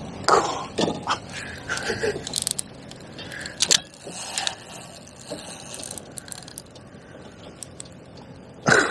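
Clicks and scrapes of a fishing rod and reel being worked while a big fish pulls against strong river flow, with a few short grunts or breaths from the angler.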